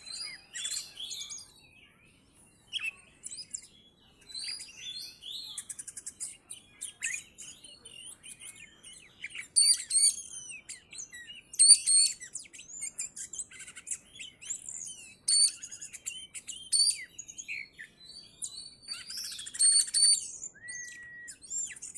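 Oriental magpie-robin (kacer) singing a long, varied song of high whistles, chirps and rapid buzzy trills, with short pauses between phrases and one held whistle near the end.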